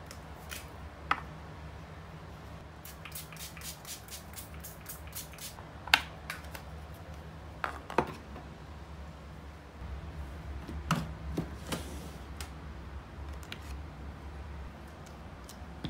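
Toiletry bottles and jars being handled on a tabletop and in a drawer: light clicks and knocks of plastic and glass containers picked up and set down, with a quick run of fine ticks about three seconds in and sharper knocks around six and eight seconds in. A steady low hum runs underneath.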